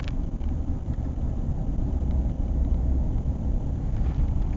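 Steady low rumble of a car driving along a road, heard from inside the moving car.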